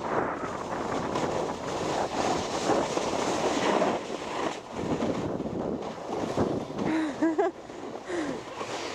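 Snowboard sliding and scraping over packed snow at speed, with wind buffeting the microphone; the rushing noise eases near the end as the board slows.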